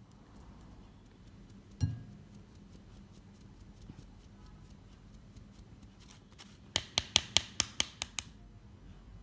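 A mesh sieve tapped against a glass bowl to shake flour and cocoa powder through: a single thump about two seconds in, light ticking, then a quick run of about ten sharp taps near the end.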